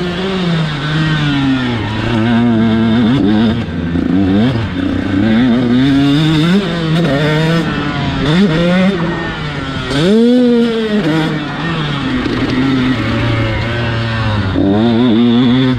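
KTM SX 125 single-cylinder two-stroke motocross engine, heard from on board, revving hard and dropping off again and again as the rider works the throttle through the lap. The pitch climbs and falls every second or two, with one sharp rise about ten seconds in.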